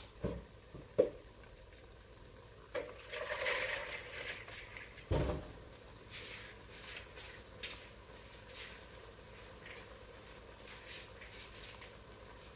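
Spiced sauce simmering in an enamelled cast-iron pot, with faint bubbling and sizzling crackles. A few dull knocks and a brief rush of noise come in the first five seconds.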